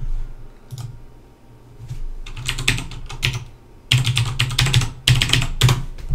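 Typing on a computer keyboard: short runs of quick keystrokes, entering a username and password at a remote desktop login prompt.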